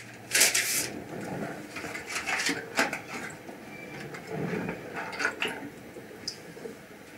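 Kitchen handling sounds at a counter: a series of short clatters and rustles as a bowl and utensils are moved about, the loudest about half a second in.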